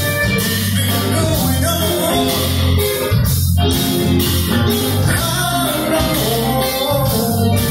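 A live rock band playing: electric guitars, bass guitar, drum kit and keyboards, with a steady drum beat and a strong bass line.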